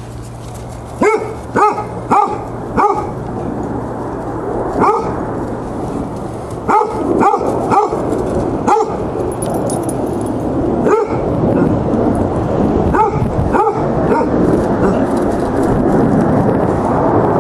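Hound dogs barking outdoors, about a dozen short barks in irregular groups: four in quick succession, then the rest singly or in pairs. A rushing noise builds up over the last few seconds.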